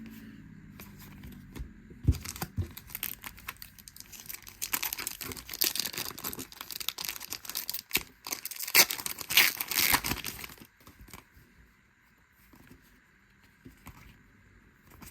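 Crinkling and tearing of a baseball-card pack's wrapper as it is handled and ripped open, a dense crackle starting about two seconds in and dying away after about ten seconds.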